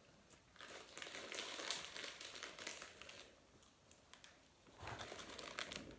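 Plastic packaging crinkling as it is handled, for about two and a half seconds, then again for about a second near the end.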